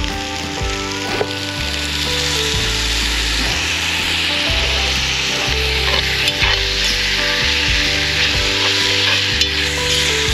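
Fat pieces sizzling hard in hot cast iron as they render down into cooking oil. The sizzle builds over the first few seconds and then holds steady, with a few sharp pops near the middle and end.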